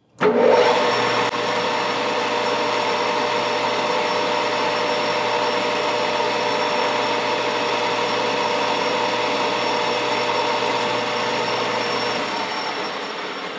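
Metal lathe starting up and turning down metal bar stock with a carbide insert tool: a steady mechanical run of motor and gear whine mixed with cutting noise. The sound eases off about twelve seconds in.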